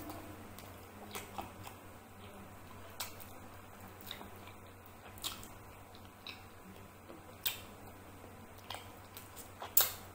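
Close-miked mouth sounds of chewing chicken curry and rice: irregular wet smacks and clicks, roughly one a second, the loudest near the end as another bite goes in.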